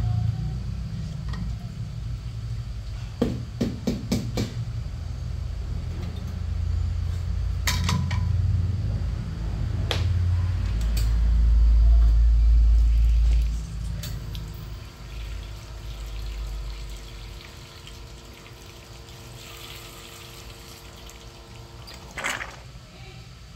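Espresso machine pump running with water flowing through the E61 group head: a low hum that swells and then cuts off suddenly about 14 seconds in. A few sharp clinks along the way, and a short clatter near the end.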